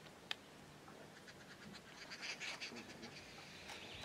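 Faint bush ambience with small birds chirping in short high bursts, busiest about two seconds in, and one sharp click shortly after the start.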